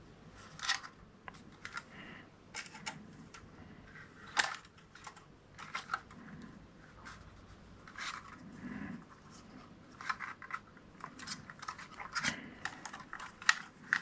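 Irregular light plastic clicks and scraping as a DJI Mavic Mini drone is handled and its folding arms are swung shut.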